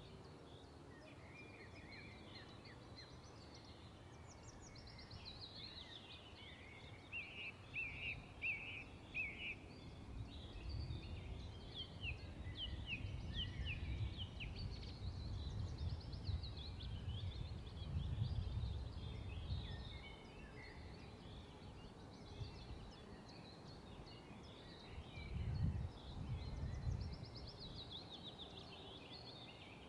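Several songbirds chirping and calling in short phrases, with a couple of quick trills, over low rumbling that swells in the middle and again near the end.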